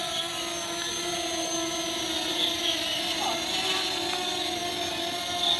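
Fimi X8 Mini quadcopter's motors and propellers running at a steady speed, a constant multi-tone whine with slight wavering in pitch.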